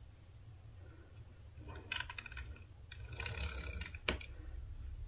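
Handheld decorative tape pen drawn along a ruler over card stock, making a clicky, rasping rolling sound in two strokes from about two seconds in, then a sharp click.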